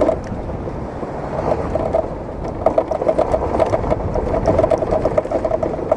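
Rapid rattling from a loose part in a Dafra scooter's instrument panel while riding, over the scooter's engine and road noise. The rider takes it for a piece come loose inside the panel.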